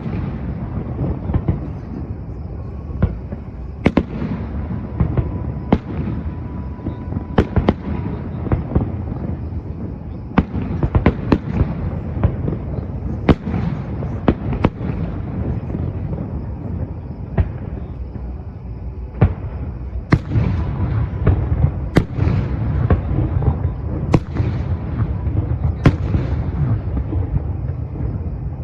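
Fireworks display going off: a steady stream of sharp bangs, some in quick clusters, over a continuous low rumble of shell bursts. It gets busiest about a third of the way in and again in the last third.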